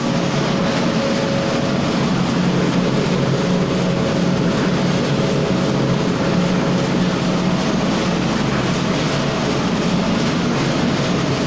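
Red chilli powder mixing machine and its screw conveyor running: a loud, steady machine hum with no change in speed.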